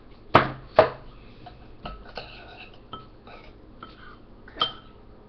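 Kitchen dishes and containers being handled on a counter: two sharp knocks about a second in, then lighter clinks and taps.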